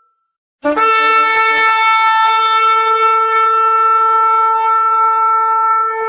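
Shofar blast: after a short silence it starts sharply about half a second in, with a brief lower note that jumps up into one long, steady held note.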